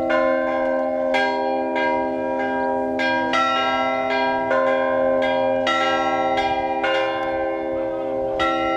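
Russian Orthodox church bells being rung: smaller bells struck in a regular pattern, a new strike about every half second, over the sustained ringing of larger, lower bells.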